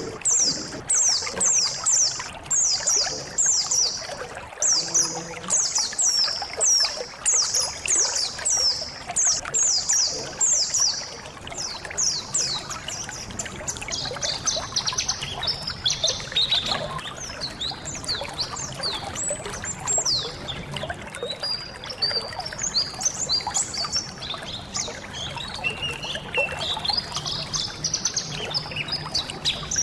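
A colony of white-eyes (pleci) twittering over the steady sound of running water. For the first dozen seconds high, sharp down-slurred notes repeat about twice a second; after that, denser and more varied chirping from several birds takes over.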